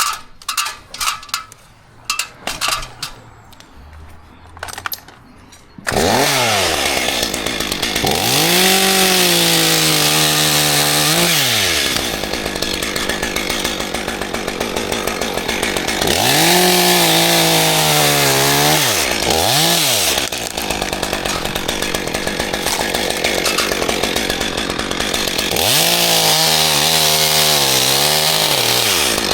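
Chainsaw starting loud about six seconds in and then revved hard again and again, its pitch climbing and dropping with each surge and running on between them, as when cutting dead oak. Before it, a few light clicks and knocks.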